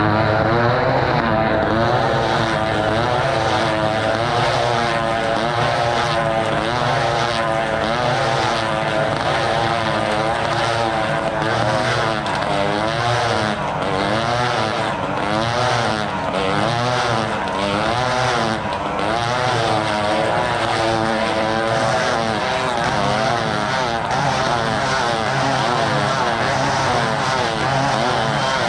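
Propeller-driven airplane flying, its engine running continuously while the pitch keeps rising and falling.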